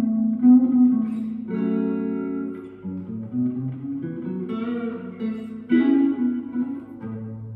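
Electric guitar, a Fender Stratocaster with Seymour Duncan SSL-1 pickups played through a JHS Morning Glory overdrive pedal into a Fender Vibro Champ Reverb amp, playing a slow blues phrase of single notes and double stops. A chord is struck about one and a half seconds in and left to ring for over a second.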